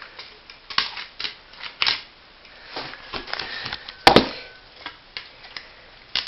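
Sheet-metal and plastic parts of a floppy disk drive clicking and rattling as they are handled and pulled apart by hand, with a loud sharp double knock about four seconds in.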